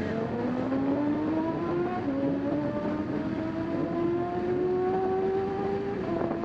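Racing motorcycle engine under hard acceleration, heard from an onboard camera. Its pitch climbs steadily, drops with an upshift about two seconds in, climbs again, and drops with another upshift near the end.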